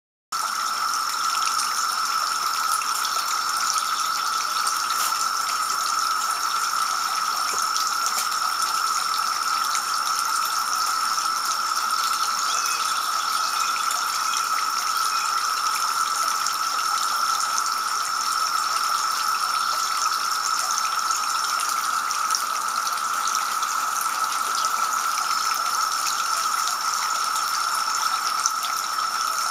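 Two-tier garden fountain splashing steadily, water pouring from the upper bowl into the basin below.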